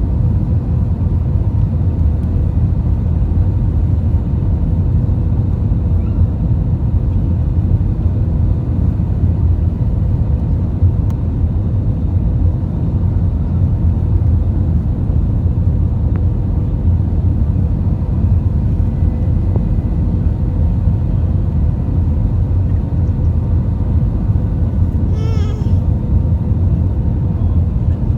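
Airbus A320 cabin noise heard from a passenger seat: a steady, loud rumble of the engines and airflow with faint steady tones over it.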